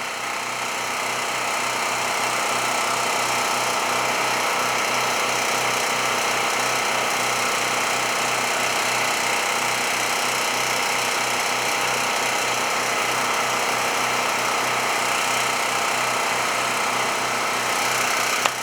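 Two Champion 4000-series portable generators running together under the same steady load, giving a loud, even engine drone that holds level throughout.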